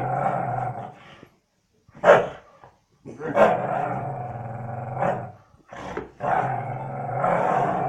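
Dog growling during a game of tug of war, a play growl in long rumbling stretches broken by short pauses.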